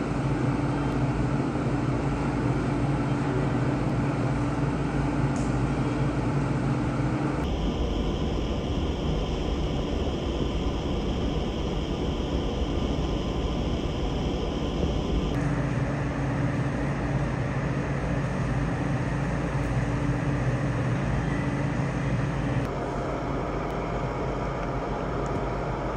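Hurricane-force wind blowing hard and steadily, with rain, in several clips joined by abrupt cuts. A low steady hum runs under the wind in some of the clips.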